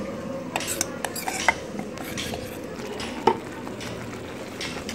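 Steel spoon stirring and scraping a thick paste in a stainless-steel pot, with irregular metal-on-metal clinks. The sharpest clink comes a little past three seconds in.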